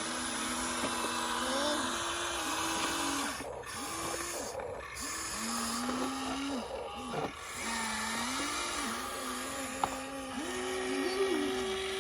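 Huina remote-control model excavator's small electric motors whining as it works, the pitch stepping up and down and gliding as different motors start, hold and stop.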